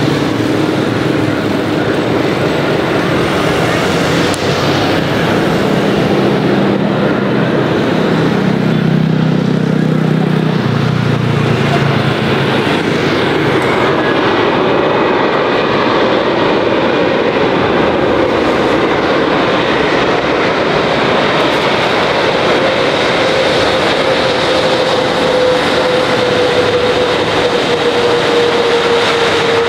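Jet engines of an Airbus A330-900 (Rolls-Royce Trent 7000s) arriving to land: loud, steady jet noise, with an engine tone slowly falling in pitch over the last several seconds.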